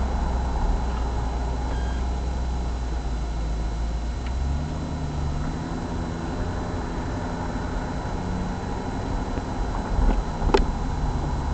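Car engine and road noise heard from inside a moving car, with the engine note rising about four and a half seconds in. A single sharp click sounds about ten and a half seconds in.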